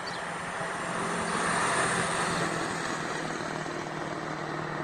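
A vehicle engine running steadily, swelling a little louder about a second and a half in before settling back.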